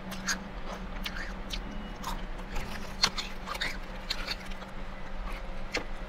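Close-up crunchy chewing of crisp snack chips, a run of short irregular crackles, over a faint steady low hum.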